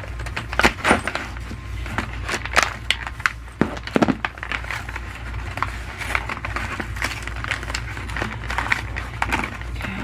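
Screws being pushed out of a plastic blister pack on a cardboard card by hand: irregular crackling of plastic and sharp clicks, over a steady low hum.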